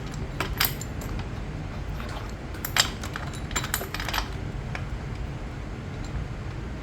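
Scattered light clicks and taps of chainsaw parts being handled during disassembly, a few in quick pairs, over a steady low background rumble.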